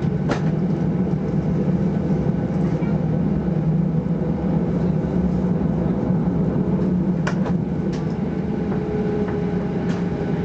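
Cabin noise of a Boeing 737-800 on the ground after landing: a steady low drone of the engines and cabin air with a faint steady higher tone. A couple of short clicks sound, one at the start and one about seven seconds in.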